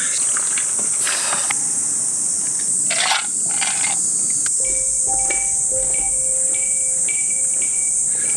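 Insects buzzing steadily in a high, continuous drone. In the first half there are a few short noisy bursts and clicks. About halfway in, light music starts, with held tones over a regular ticking beat.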